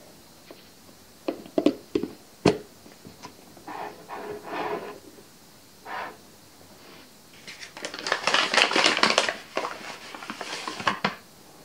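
Kitchen handling sounds: sharp clicks and knocks of glass jars and their lids in the first few seconds, then a few seconds of a paper flour bag crinkling and rustling as it is picked up.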